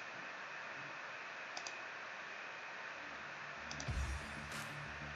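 Computer mouse clicking about four times, each a quick pair of ticks as the button is pressed and released, over a steady faint hiss.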